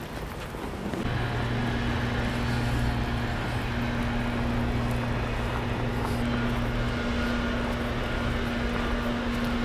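Steady drone of motor traffic: a constant low hum that sets in about a second in, over an even background rush.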